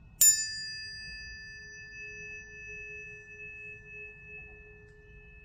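A tuning fork struck once just after the start, a bright metallic ping followed by a clear ringing tone that slowly fades, its level gently wavering.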